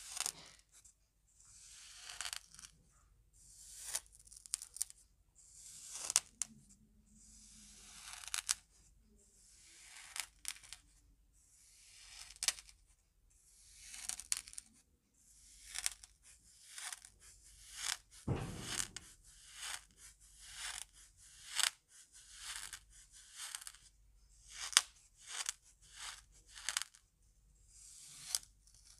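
Wooden spoon cutting into kinetic sand over and over: each stroke a gritty crunch that builds and ends in a sharp crack as the sand breaks away. The strokes come about every two seconds at first and faster later on, with one duller thump about two-thirds of the way through.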